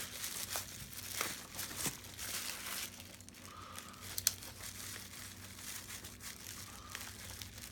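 Crinkling and rustling of packing material with tape tearing as a heavily taped shipping box is opened. Scattered small clicks, and one sharp click a little past the middle.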